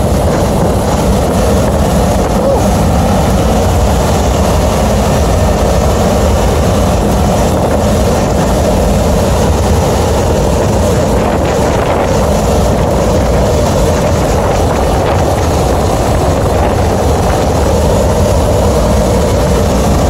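Trane 90-ton rooftop unit running, heard from inside its air-handling section: the steady rush and hum of the belt-driven centrifugal supply blower and its motor, loud and unchanging.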